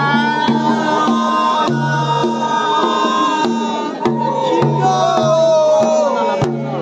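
Traditional Tiwa folk music: several bamboo flutes play a long, wavering melody with sliding notes over a steady beat of double-headed barrel drums, about two strokes a second.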